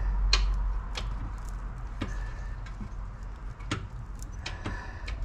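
Irregular light metallic clicks and taps, about eight over five seconds, as hands handle bolts and mount hardware in a car's engine bay, over a steady low rumble.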